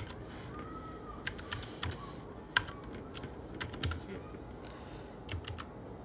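Computer keyboard typing: irregular clusters of keystrokes with short pauses between them.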